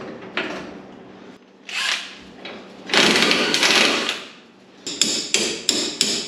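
Tools working on the left-rear leaf-spring shackle of a leaf-spring Camaro street stock as the shackle is dropped down one hole: a few scattered metal knocks, a louder harsh burst lasting about a second around the middle, then sharp metal strikes about three a second near the end.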